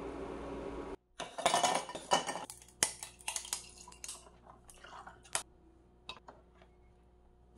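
A steady noise cuts off about a second in. Then ade is poured from a pouch over ice in a glass mug, with the ice crackling and clinking, and the dishes and glass clink and knock as they are set down on a tray, the clicks thinning out toward the end.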